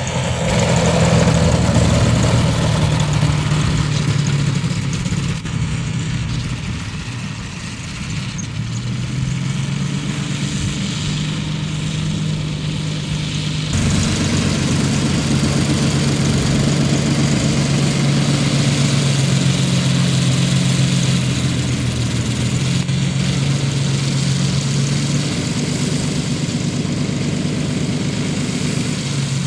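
Engine and propeller of a giant-scale radio-controlled Udet U 12 Flamingo biplane running at low throttle as the model lands and taxis on grass. Its pitch steps up and down with small throttle changes.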